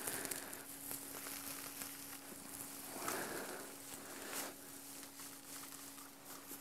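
Compressed alfalfa hay rustling as it is pulled apart by hand into a tub, in irregular handfuls, over a faint steady hum.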